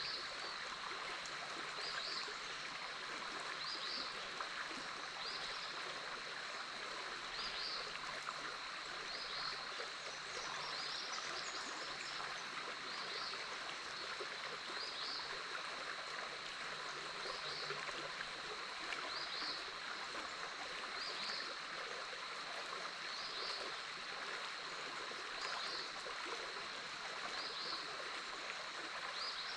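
Big Otter River flowing steadily, a constant rush of water. Over it run a steady high-pitched hum and a short high call that repeats about every two seconds.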